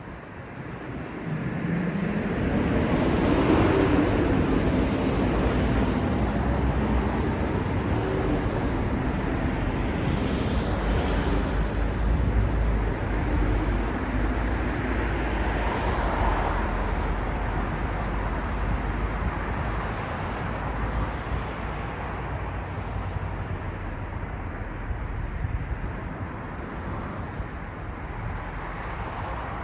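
City street traffic. A vehicle comes up close about two seconds in, its engine note rising as it passes. A steady wash of road noise follows and slowly fades.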